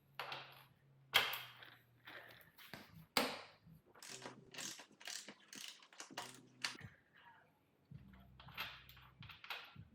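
Socket wrench working the motorcycle's 32 mm rear axle nut loose: a run of metallic clicks and knocks, with two sharp, loud cracks about one and three seconds in.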